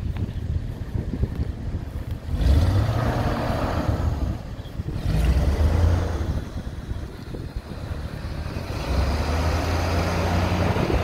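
Engine of a 1973 Dodge C600 grain truck running, with a steady low tone that swells louder about two and a half seconds in, again around five seconds, and near the end.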